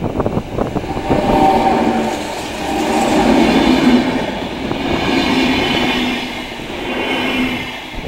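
Renfe series 470 electric multiple unit passing close by: sharp wheel clicks over the rail joints as it arrives, then a loud rumble with a humming tone that rises and falls in waves as the cars go by.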